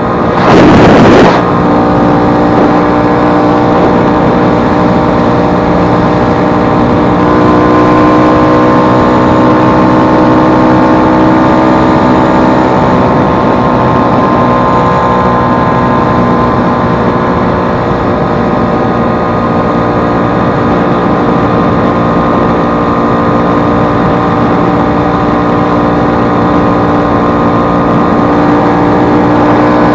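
Vespa 150's two-stroke single-cylinder engine running steadily, its pitch drifting slightly up and down, after repair of a broken elastic pinion (cush-drive gear). There is a brief loud burst of noise about a second in.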